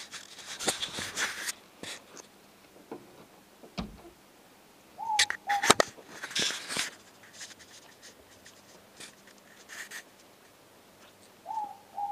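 Morepork (ruru) owl calling its two-note "more-pork" hoot, the second note slightly lower, about five seconds in and again near the end. Between the calls come brief crisp rustles and clicks.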